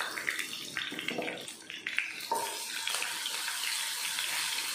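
Hot oil sizzling and crackling in a small pan of tadka (mustard seeds, cumin, dried red chillies and curry leaves) as a pinch of asafoetida goes in, stirred with a spatula.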